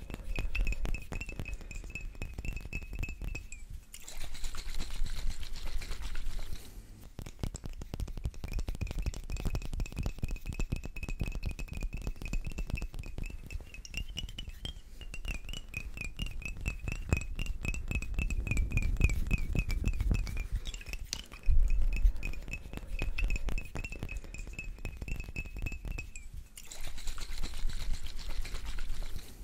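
Rapid fingernail tapping on small glass bottles, one holding liquid, with a steady high glassy ring under the taps; twice the ring drops out for a few seconds and a softer hiss takes its place.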